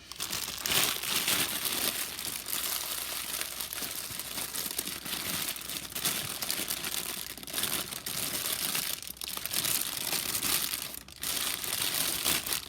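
Plastic cereal-bag liner crinkling continuously as it is handled close to the microphone, with small pauses and surges.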